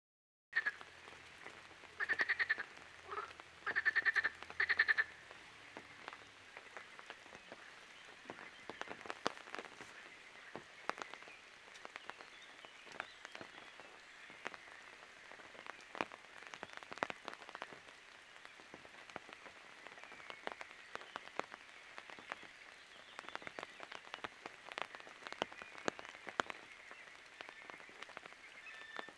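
Frogs croaking by the water: three loud, rapidly pulsed rattling calls in the first five seconds, then a faint steady chorus with scattered light ticks throughout.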